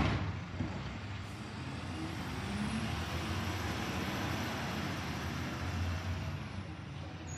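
Mack LR side-loader garbage truck's engine running as the truck pulls away up the street, with a sharp knock right at the start. A broad hiss over the low engine hum swells for a few seconds in the middle and then eases off.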